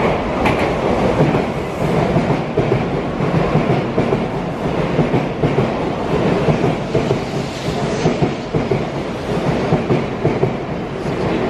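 Shinkansen bullet train running on the rails, a steady, loud rail noise with no marked rise or fall.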